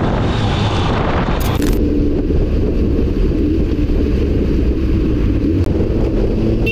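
Vehicle on the move with heavy wind rush on the microphone. About a second and a half in, the sound changes abruptly to a low rumble of engine and road noise with a faint wavering engine note.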